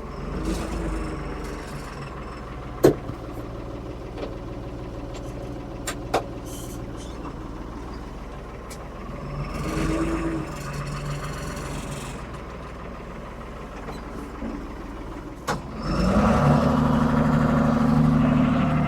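1975 Ford 550 backhoe's diesel engine running under load, revving up briefly in the middle and then rising to a louder, steady higher note about three-quarters of the way through. A few sharp knocks cut through it.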